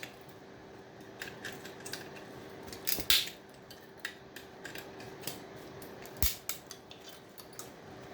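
Hand tools and small metal parts clicking and clinking as a power board is pried apart to get the MOSFETs and aluminium heatsinks off. There are scattered light clicks, louder knocks about three seconds in and again past six seconds, and a faint steady hum underneath.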